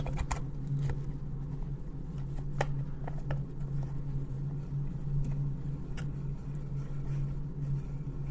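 Scattered light clicks and taps as the handguard and its screw on a Ruger 10/22 Backpacker rifle are handled and threaded in, over a steady low hum.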